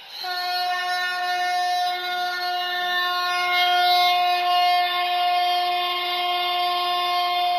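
Conch shell (shankh) blown in one long, steady, horn-like blast, played as a sound effect by a talking-book reader pen through its small speaker.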